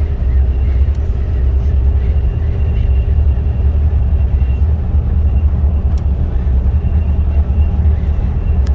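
Steady low rumble of a road vehicle driving, with a few faint clicks.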